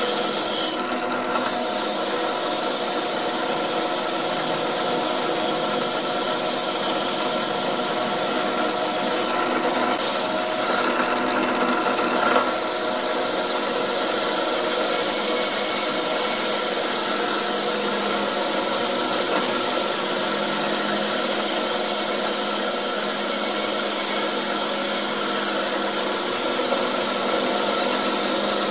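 Drill press running steadily, spinning a wheel in its chuck while a rusty metal saw-vise part is held and turned against it: a constant motor hum under a continuous rough grinding rub of metal on the wheel.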